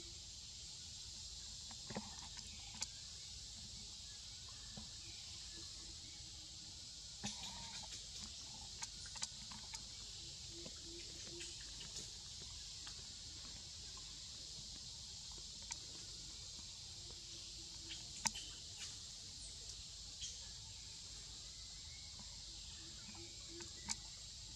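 Steady high-pitched drone of forest insects, with scattered faint clicks and rustles.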